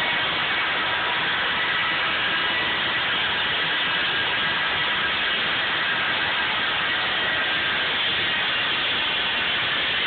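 A century-old water-powered sawmill running: the saw and its drive machinery give a steady, unbroken mechanical noise at even loudness.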